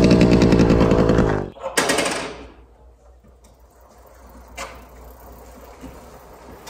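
Yamaha YZF-R125's single-cylinder four-stroke engine running steadily at idle with a rapid, even pulse, stopping suddenly about a second and a half in. A short hiss follows, then a quiet room with a single click.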